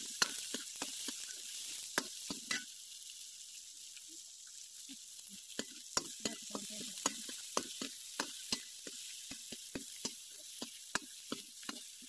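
Chopped onions sizzling steadily in hot oil in a kadhai, with a metal ladle clicking and scraping against the pan as they are stirred.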